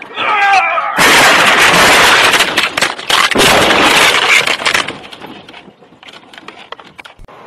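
A vehicle collision recorded from inside the cab: a brief wavering high-pitched sound, then about a second in a sudden violent impact with loud crunching and scraping for about four seconds, trailing off into scattered clatter of debris.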